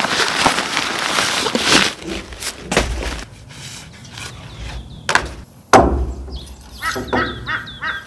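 Fabric of a nylon stuff sack rustling, then a few sharp clacks as tarp pole sections are handled and fitted together. Near the end a bird gives a quick run of about five short repeated calls a second.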